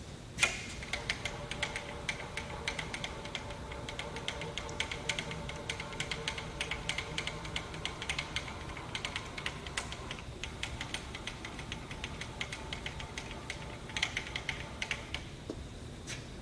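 Vertical milling machine running: a steady motor whine with dense, rapid mechanical clicking. It starts with a sharp clunk about half a second in and stops about fifteen seconds in.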